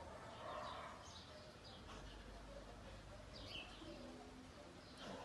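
Faint chirps of small birds: a few short calls scattered through, against a quiet background.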